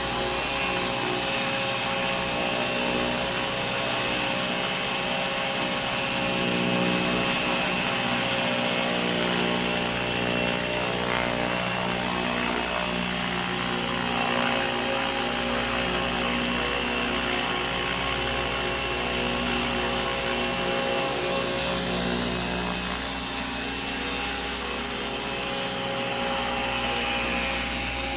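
Radio-controlled Align T-Rex 600 ESP electric helicopter in an EC145 scale body running, with a steady whine from the motor and gears over the sound of the rotor blades at an even head speed.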